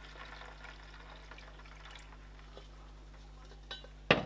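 Chicken stock pouring and trickling from a stainless steel pot into a roasting pan, faint, for the first couple of seconds. A single sharp knock comes near the end.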